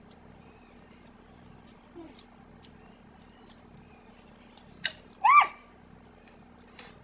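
Quiet clicks and smacks of someone eating with a spoon. About five seconds in there is one short, high-pitched call that rises and falls, like a cat's meow.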